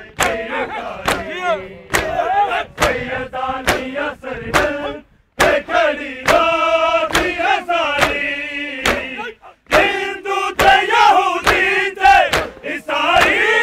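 Men's voices chanting a noha, a Shia Muharram lament, in unison, over sharp open-hand chest-beating (matam) slaps about twice a second. The chanting and slaps break off briefly twice.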